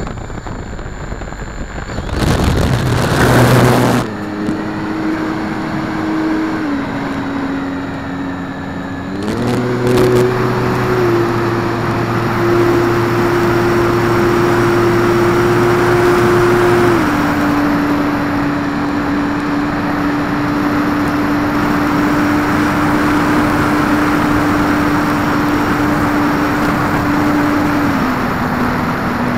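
Electric motor and propeller of an Art-Tech Cessna 182 500-class RC plane, heard from on board: a loud rush as it throttles up for the takeoff run about two seconds in, then a steady motor hum over wind noise in flight. The hum's pitch steps down and up several times as the throttle is changed.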